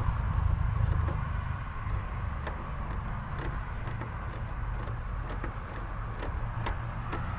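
A few light clicks and taps of a plastic headlight housing being worked onto its mounts and adjusters, over a steady low background rumble.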